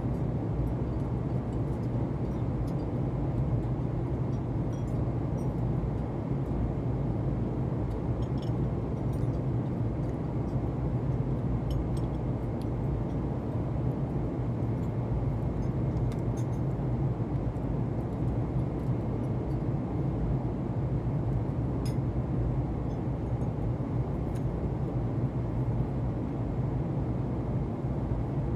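Steady low rumble of a Boeing 747-8 airliner cabin in flight, engine and airflow noise without change, with a few faint clicks.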